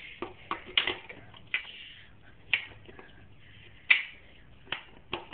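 Irregular metallic clicks and knocks of a BMX peg being worked against the axle bolt as it is tried on, the loudest about four seconds in.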